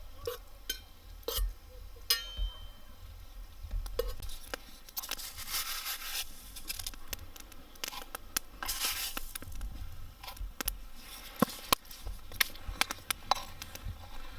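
Cooking utensils clinking and scraping against a metal billy pot, with tearing and rustling of food packaging and short hissing rustles, as beef and seasonings are added to melted butter.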